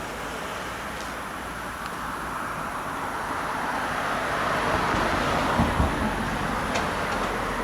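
A road vehicle driving past, its tyre and engine noise swelling to a peak about five or six seconds in, with a couple of low thumps near the peak.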